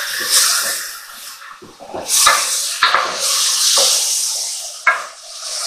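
Risotto rice and a splash of stock sizzling and bubbling in a hot pan, with a few sharp knocks of a utensil against the pan.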